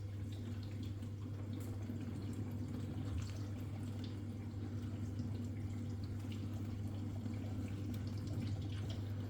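Zanussi dishwasher in its wash phase: the wash pump runs with a steady low hum while water sprays and drips inside the closed tub. The machine is running its cycle normally now that the faulty door micro switch has been replaced.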